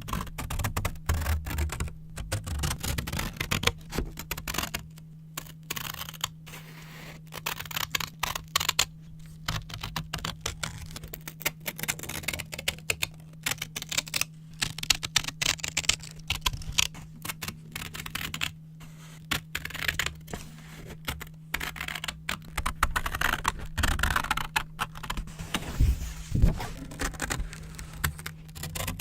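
Scissors cutting brown paper: a dense, irregular run of quick crisp snips.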